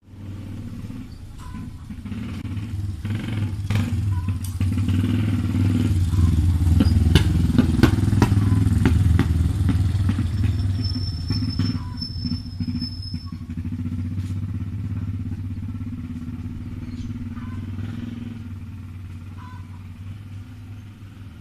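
A motor vehicle's engine running with a deep rumble, growing louder to a peak about halfway through and then slowly fading, as if passing by.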